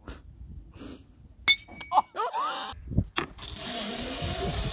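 A sharp crack about one and a half seconds in, a bat hitting a ball, followed by a short cry. From about three and a half seconds, a steady rushing hiss with a slowly rising whine: a zipline trolley running along its steel cable, speeding up.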